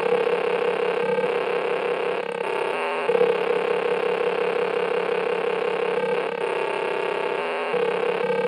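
Harsh, heavily distorted noise music: a dense, steady wall of sound with a low buzzing drone. The texture changes abruptly a few times, about a second in, about three seconds in, and near the end.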